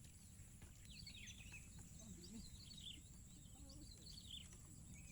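Faint chirping of small birds, a scatter of short calls, over a low steady rumble.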